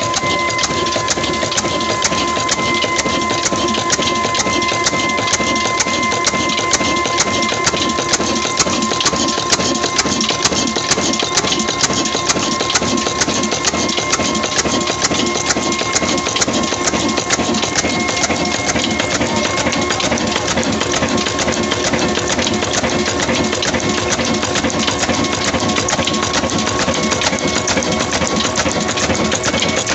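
Old 26 HP black desi stationary engine with a big flywheel running steadily under load, driving a chakki flour mill: a loud, dense, fast mechanical clatter with a steady high whine over it.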